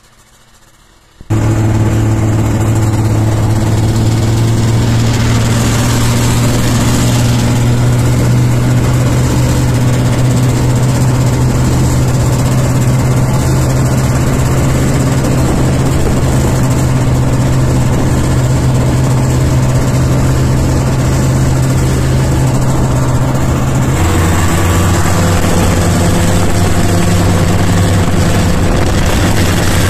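Snowmobile engine running steadily under way, heard from on board, a strong steady engine note over a broad hiss. It cuts in abruptly about a second in after a faint stretch, and the engine note drops a little lower near the end.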